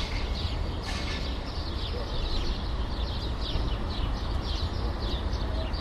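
City ambience: a steady low traffic rumble under a constant stream of short, quick bird chirps.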